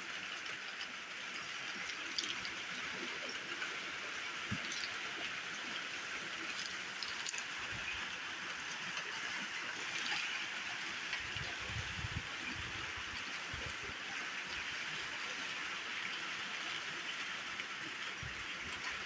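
Monsoon rain falling steadily, a continuous hiss with scattered faint drop ticks. A few brief low bumps sound under it.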